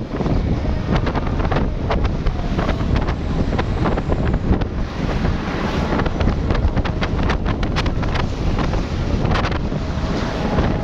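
Wind buffeting the microphone over the steady low rumble of a vehicle moving through slow traffic, with scattered crackles in the second half.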